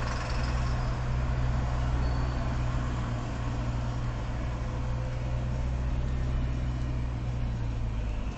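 Steady low rumble of a car on the move, engine drone and tyre noise heard from inside the cabin.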